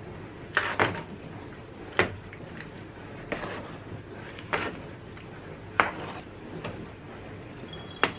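A black plastic ladle stirring cherry plums in their juice in a plastic mixing bowl, knocking against the bowl about once a second.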